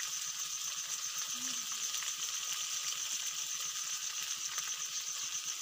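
Chopped okra, tomato and green chillies frying in a steel pan, a steady, even sizzle.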